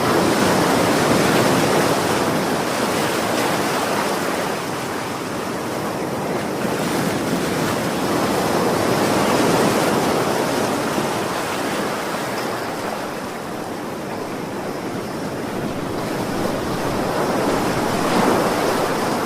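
Ocean surf: a steady wash of waves that slowly swells and eases, with louder surges about a second in, around nine seconds and near the end.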